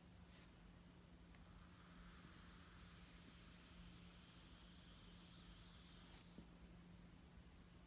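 Apple Watch giving off a high-pitched electronic buzz with a hiss under it. It starts suddenly about a second in and cuts off after about five seconds. The noise is a fault that two repairs by Apple have not cured.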